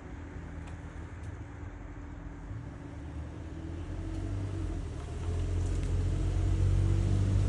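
A low, steady mechanical rumble with a hum, like a motor vehicle's engine, growing louder from about halfway through.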